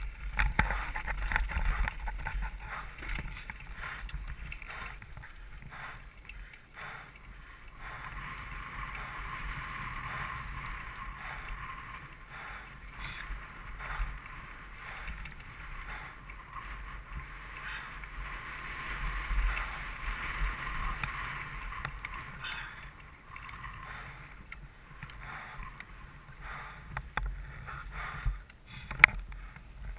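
Mountain bike descending a rocky dirt trail, heard from a helmet camera: wind rushing over the mic with a low rumble, and the bike rattling and knocking over rocks and ruts. A single sharp knock near the end.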